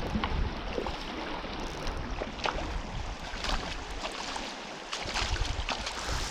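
River water running and splashing, with many short little splashes over a steady rush, and low gusts of wind rumbling on the microphone.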